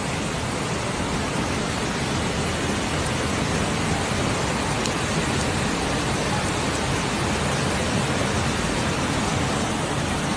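Steady, even rush of water, a dense noise with no breaks or separate impacts.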